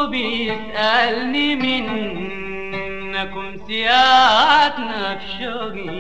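Instrumental passage of a Sudanese song: a melodic line sliding and bending in pitch over accompaniment, swelling loudest about four seconds in.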